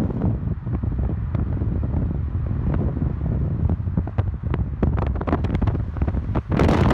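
Wind buffeting the microphone over the low road rumble of a moving car, crackling more from about halfway through, then a sudden loud rush of wind noise just before the end.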